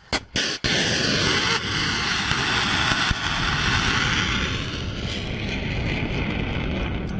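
Oniks supersonic anti-ship missile launching from a Bastion coastal defence launcher: two short bangs, then about half a second in a sudden, loud, steady rocket-motor roar that carries on as the missile climbs away.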